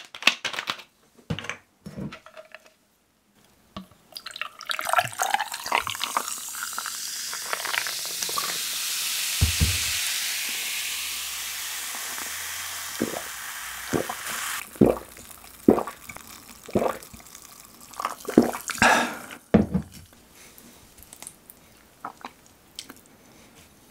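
Cola poured from a plastic bottle into a glass mug: a fizzing hiss that swells for several seconds and dies away. It is followed by a string of separate short swallows and knocks as the glass is drunk from and handled.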